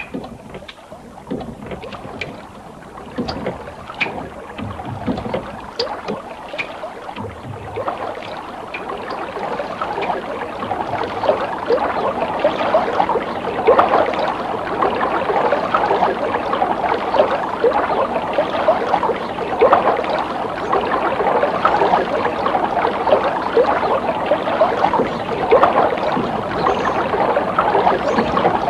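Splashing, sloshing water sounds made of many small crackling splashes. They start sparse and grow denser and louder over the first ten seconds or so, then carry on steadily.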